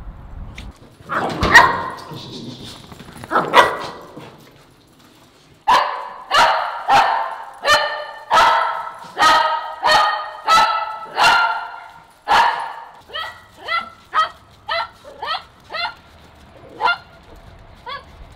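A dog barking: two loud barks, then a long steady run of barks at about two a second, ending in a string of shorter, higher barks.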